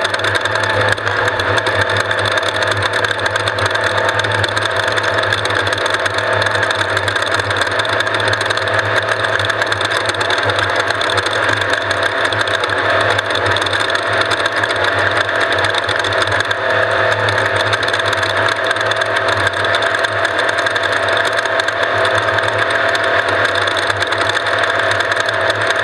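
Off-road race vehicle's engine running steadily, with no let-up.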